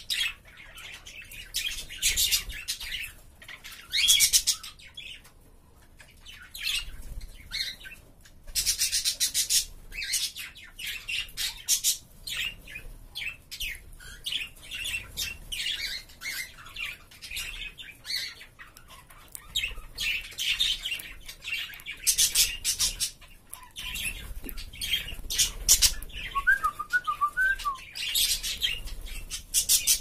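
Budgerigars and a cockatiel in an aviary chattering and squawking in short, harsh bursts, with wings fluttering as the budgies fly about.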